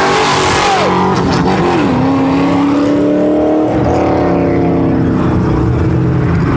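A car engine revving hard at high rpm during a burnout. The revs drop about one and a half seconds in, hold steady, then fall away again near four seconds.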